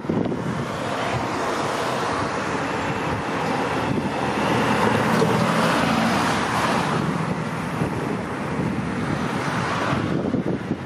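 Road traffic noise with wind buffeting the microphone, swelling a little around the middle as a vehicle goes by.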